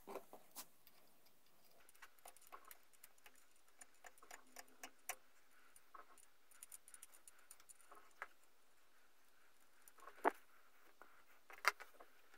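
Faint metallic clicks and clinks of an open-end wrench working on steel brake-line union fittings as they are loosened, with two sharper clinks in the last few seconds.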